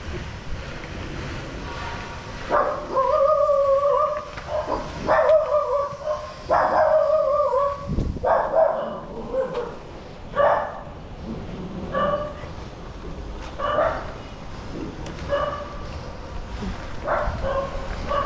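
A dog barking and yelping repeatedly. It starts with a few drawn-out calls of about a second each, then gives shorter barks roughly every second or so.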